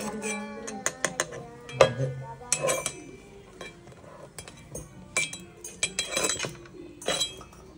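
Kitchen cleaver clinking and knocking as it is worked against a mud crab's shell: a string of separate sharp metallic knocks, some ringing briefly.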